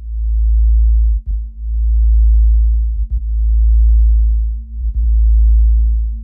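Deep sub-bass sine tone from an electronic music track, swelling in four long pulses with short dropouts between them, about one every one and a half seconds. There are no drums, only faint higher tones above the bass.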